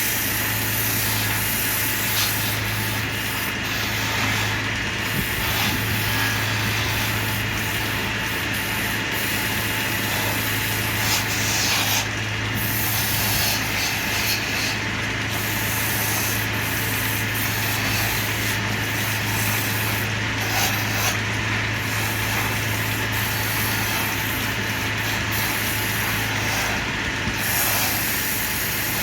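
Wood lathe running with a steady motor hum while the spinning wood is worked by hand, giving a continuous rough scraping hiss that swells and eases.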